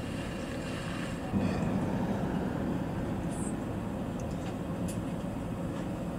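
Heavy box truck driving past, heard from inside a waiting car: a low engine rumble that grows louder about a second in and holds steady.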